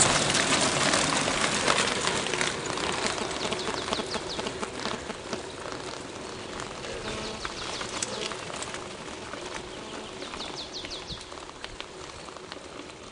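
Mountain bikes clattering over a cobblestone road as a group of riders passes close. The noise fades over the first few seconds as they ride away. A songbird sings quick runs of high, falling notes, most clearly about ten seconds in.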